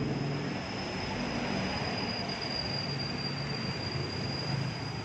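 Steady background drone of an engine running, with a constant high-pitched whine over it.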